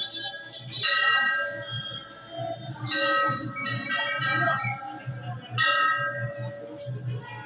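A metal bell struck about four times at uneven intervals, each strike ringing out and fading.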